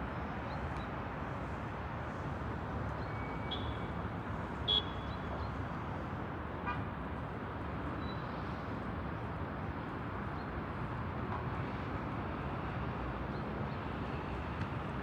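Steady hum of distant city traffic. A single short, high-pitched sound stands out a little under five seconds in.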